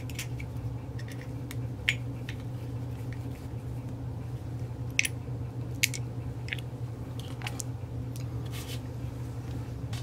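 Scattered small clicks and taps of a 2 mm Allen key working the two pinch bolts on a bicycle dropper post's head, with the parts handled between turns, over a steady low hum. The sharpest clicks come about two, five and six seconds in.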